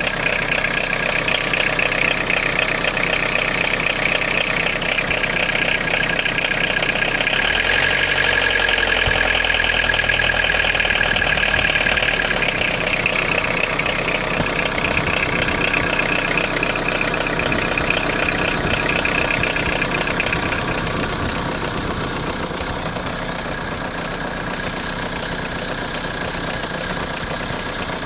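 Citroën Jumpy's XUD9TF 1.9-litre diesel engine idling roughly with a diesel knock, the owner suspecting air getting into the fuel line. It runs a little louder about a third of the way in and settles slightly quieter later on.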